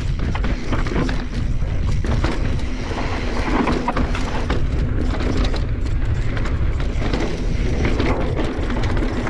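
Mountain bike rolling fast down a rocky dirt trail: a steady rush of wind and tyre noise, broken by many small knocks and rattles as the bike goes over rocks and bumps.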